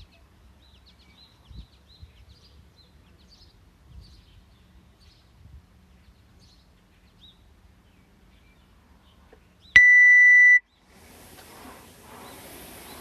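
Workout interval timer giving one long electronic beep, a single high steady tone lasting under a second, the signal that a new round begins. A steady rushing noise starts about a second after it.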